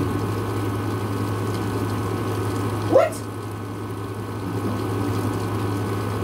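Steady rain noise with a low, even hum beneath it. About three seconds in there is one short squeak that rises quickly in pitch.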